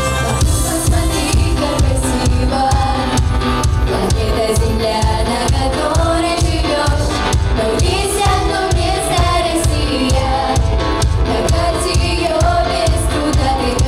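Children's choir singing together over music with a steady, heavy beat.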